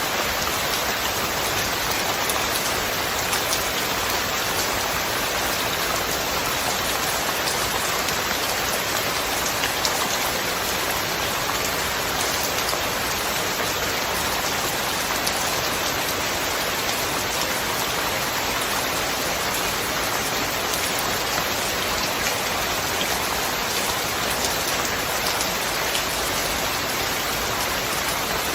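Steady rain: a dense, even hiss of falling water, with single drops ticking through it, and no thunder.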